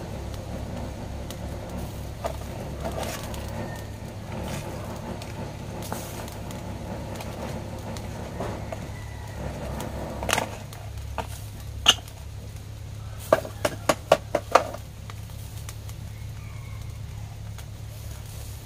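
Open wood fire under a wire grill of catfish, with a steady low hum and light crackling. About twelve seconds in comes a quick run of sharp clicks and knocks, about eight in three seconds.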